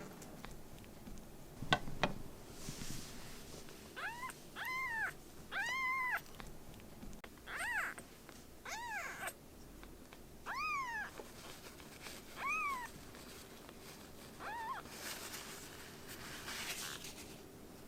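Kitten meowing about eight times in short, high-pitched calls, each rising and then falling in pitch, after a couple of sharp knocks about two seconds in.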